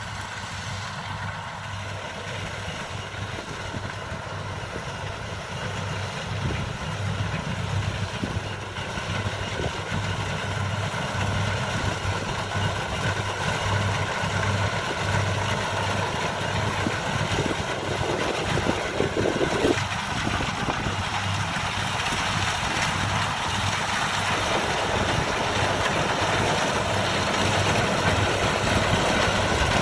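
Diesel engine and machinery of rice-harvesting equipment running steadily: an even low throb with a steady mechanical whine over it, growing gradually louder.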